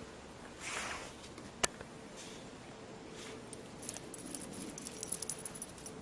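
Footsteps crunching through deep snow: a short swish about a second in, a single sharp click, then a run of uneven crackles and clicks in the second half.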